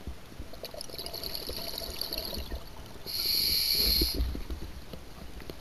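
Scuba diver breathing through a regulator underwater: hissing breaths with bubbling crackle, a softer one about half a second in and a louder one about three seconds in.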